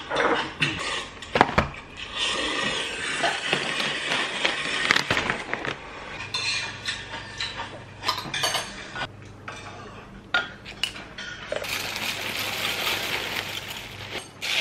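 Tableware clinking and knocking: a glass mug, spoon and dishes set down and handled on a table. For the last few seconds, dry cereal flakes pour into a glass mug of milk with a continuous rustle.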